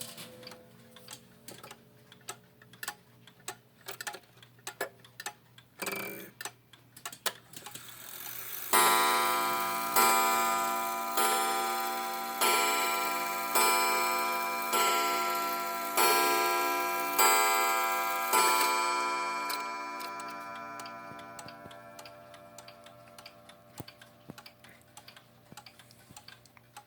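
Waltham 31-day wall clock movement ticking, then striking: about eight seconds in, nine evenly spaced strokes on the gong come a little over a second apart, each ringing on. The ring fades away slowly over several seconds after the last stroke while the ticking carries on. The rack-and-snail count sets the number of strokes.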